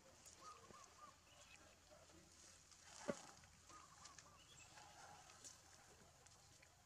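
Near silence: faint outdoor ambience with a few soft chirping notes, twice, and one sharp click about three seconds in.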